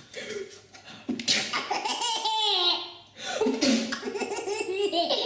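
Baby laughing in two long squealing bursts, the first starting about a second in and the second just after three seconds.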